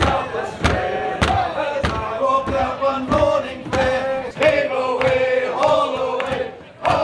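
Voices chanting or singing together over a steady beat, about one beat every 0.6 seconds.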